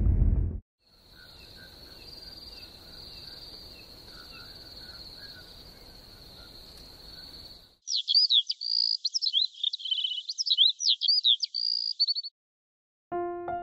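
Crickets chirring steadily and faintly, a night-time sound. About eight seconds in they give way to a songbird singing loudly in quick rising and falling notes, a dawn-chorus cue.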